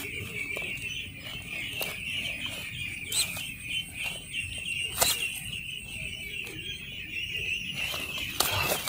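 A flock of young ducklings peeping together in a steady, dense chorus, with a few sharp knocks or clicks, the loudest about five seconds in.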